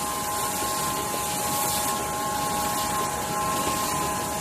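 Rotary tube screen printing machinery running: a steady mechanical hum with a few constant high whining tones over it.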